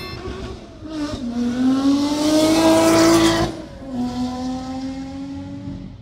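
Ferrari sports car engine accelerating hard, its note rising steadily in pitch and getting louder, then cutting off abruptly about three and a half seconds in as it shifts up and carrying on at a lower pitch, climbing again.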